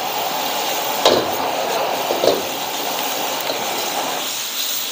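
Noodles and vegetables sizzling in a wok with a steady hiss while a metal ladle stirs and tosses them. The ladle clanks against the wok about a second in and again about two seconds in.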